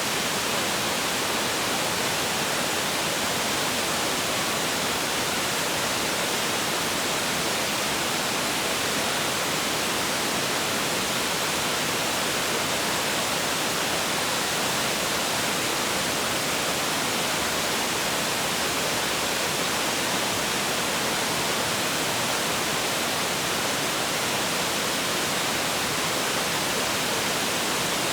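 Shirahige Falls' water rushing and splashing down the rock face, a steady, even roar with no change.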